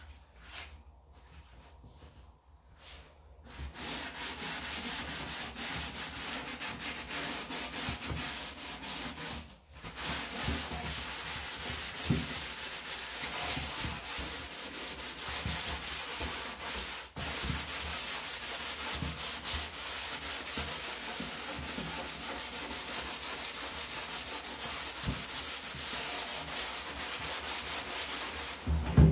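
A sponge scrubbing fast and steadily against the inside wall of a garbage can. It is faint for the first few seconds, then a dense rubbing that breaks off briefly about ten seconds in. A short knock near the end.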